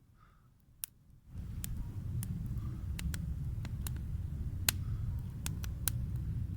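Bonfire crackling: sharp, irregular pops over a low rumble that comes in suddenly about a second in.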